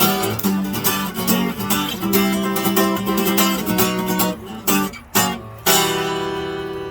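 Acoustic guitar strummed in a steady rhythm between sung lines, then two short separate strokes, and near the end a final chord left to ring and fade out.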